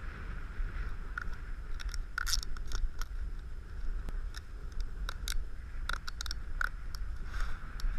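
Snowboard and boots shifting in powder snow, with scattered crunches and clicks over a low rumble, picked up by a board-level action camera.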